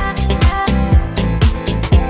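Background music with a steady beat: a bass drum about twice a second under bright cymbal hits and sustained instrument tones.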